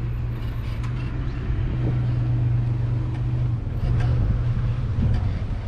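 An engine running steadily at a low, even hum, with a few faint knocks.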